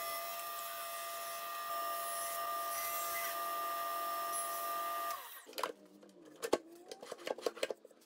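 SawStop cabinet table saw running with a steady whine over a hiss; the sound drops away abruptly about five seconds in. A scatter of sharp clicks and knocks follows.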